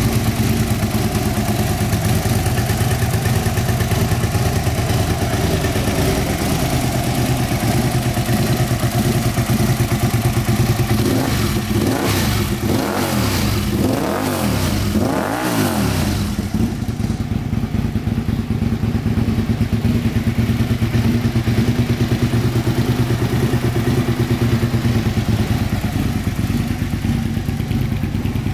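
2001 Aprilia RSV Mille's 998 cc 60-degree V-twin idling steadily through a carbon-fibre silencer, blipped several times about halfway through with the revs rising and falling, then settling back to idle.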